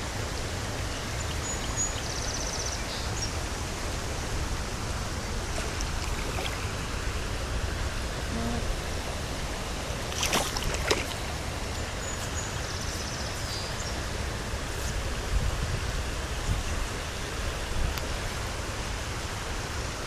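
Creek water running steadily, with a few faint high chirps twice and one brief sharp noise about ten seconds in.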